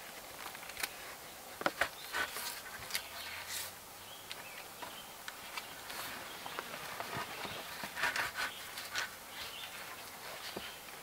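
Irregular rustling with scattered light clicks and knocks, busiest about two seconds in and again around eight seconds in.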